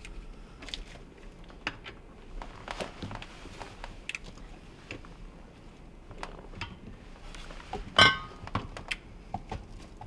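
Scattered small clicks and knocks of an Allen wrench worked back and forth in the hex socket under an InSinkErator garbage disposer, turning the motor by hand to check it is not seized; it turns freely. One louder knock about eight seconds in.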